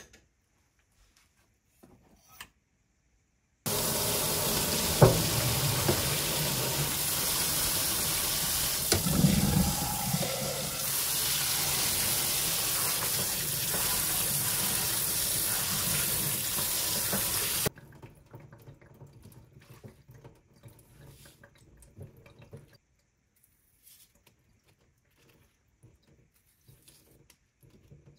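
Kitchen sink spray faucet running onto blanched bomdong (Korean spring cabbage) leaves in a stainless mesh colander: a steady loud water hiss that starts a few seconds in and shuts off about two-thirds of the way through. Afterwards, only faint soft sounds of hands handling the wet leaves.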